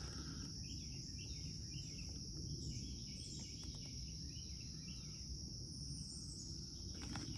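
Woodland ambience: a steady high-pitched insect chorus, with short repeated bird chirps from about half a second in to about five seconds.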